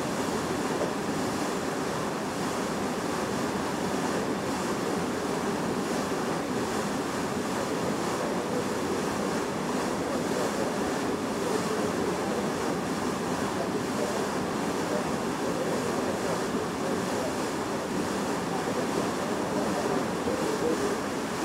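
Bow wave of a Hurtigruten coastal ship's steel hull, a steady rushing and splashing of water as the bow cuts through the sea.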